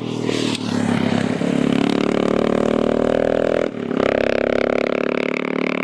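Adventure motorcycle engine accelerating, rising in pitch, then holding a steady drone. There is a brief dip about three and a half seconds in, like a gear change, before it pulls on.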